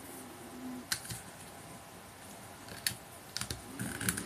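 Hard plastic action figure and its plastic staff being handled: a few light clicks and taps, one about a second in and a quick cluster near the end, as the staff is tried against the figure.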